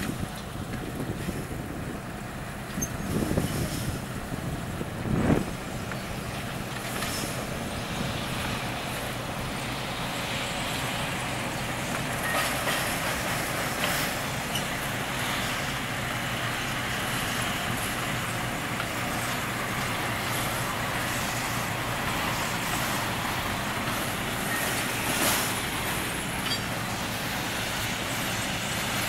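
Two diesel cane train locomotives running as they pass, with a brief louder burst about five seconds in, then a steady rolling clatter of the empty cane bins they haul along the track.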